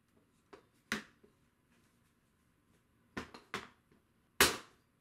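Tray table top's hooks snapping onto its steel tube leg frame: a light click and a sharper knock about a second in, two more knocks after three seconds, and the loudest snap near the end as the tray tilts up.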